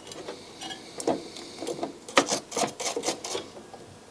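Toothbrush bristles scrubbing and scratching over a circuit board to clear loose solder balls left from desoldering, an irregular run of short scratchy strokes and clicks that comes thickest in the second half.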